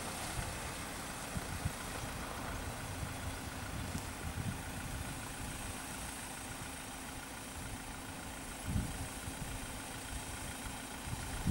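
A vehicle engine idling steadily: an even hum under uneven low rumbling.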